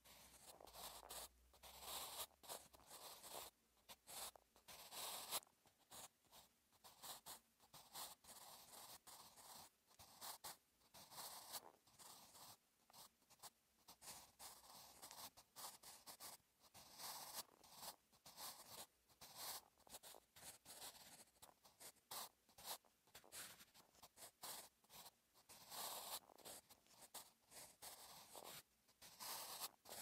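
Staedtler Mars Lumograph Jumbo 8B graphite pencil writing Korean cursive on notebook paper. Quiet, irregular scratching strokes follow one another with brief pauses between letters.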